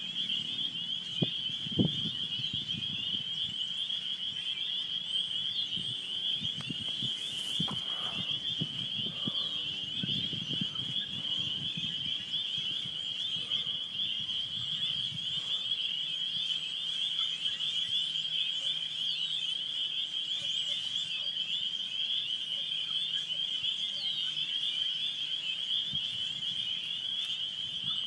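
Spring peepers in full chorus: a dense, steady, high-pitched mass of peeps from many frogs at once, with the odd single rising peep standing out, the males' early-spring breeding call. Low rumbling and a few thumps sound under it in the first half.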